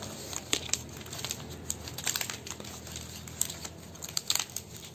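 Dry coconut palm frond leaflets rustling, with scattered sharp clicks, as they are bent and tucked by hand while being woven. The leaflets are over-dried and brittle, cracking as they are worked.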